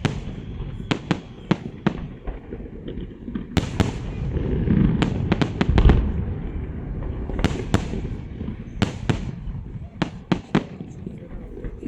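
Fireworks salute going off: a rapid series of sharp bangs and cracks, with a heavier low boom swelling about five seconds in.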